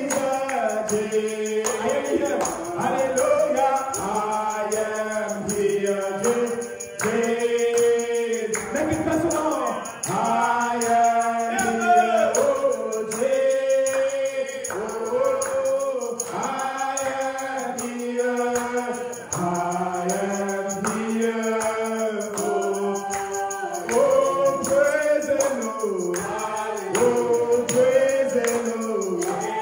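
A group of voices singing a gospel song together, with a tambourine shaken along in rhythm.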